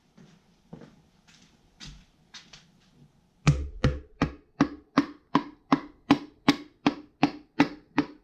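The rubber-gripped butt of a hammer handle tapping a piston down through a ring compressor into its cylinder sleeve: a few light taps, then from about three and a half seconds in a steady run of sharper knocks, nearly three a second.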